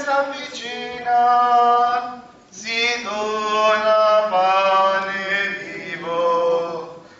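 Religious hymn sung in Italian, with long held notes in phrases and a short break about two and a half seconds in.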